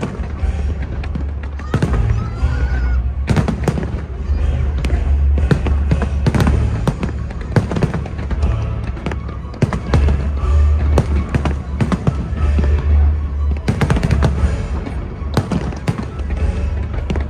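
Fireworks display: a dense run of sharp bangs and crackles, with a short whistling glide about two and a half seconds in, over a steady low rumble and music.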